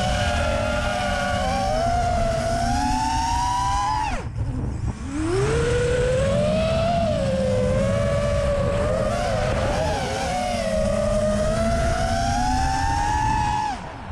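FPV quadcopter's brushless motors whining, the pitch rising and falling with throttle. About four seconds in and again near the end the whine drops sharply and quietens as the throttle is cut, then climbs back up. A steady low rushing noise runs underneath.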